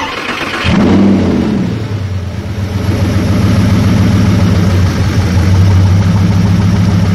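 Lamborghini Gallardo 5.2 FSI V10 restarted: the starter turns it over for under a second, it catches with a brief burst of revs, dips, then settles into a steady idle. The engine is misfiring, with fault codes logged on cylinders 2 and 10.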